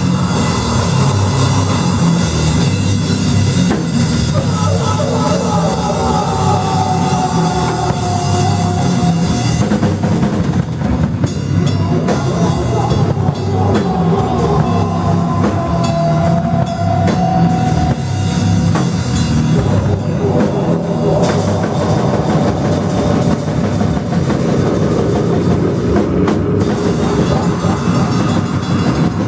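Loud live rock band playing, with a pounding drum kit under dense noisy instruments. Twice a held, bending high tone rises out of the mix.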